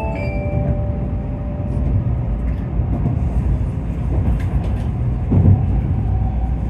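Steady low rumble of a Tokaido Shinkansen train running, heard from inside the passenger car. The last mallet-like notes of the onboard chime fade out right at the start, and there is a brief louder low swell about five seconds in.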